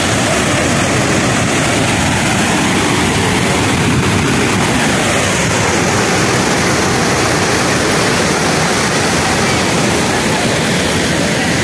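Steady roar of a large waterfall, even and unbroken throughout.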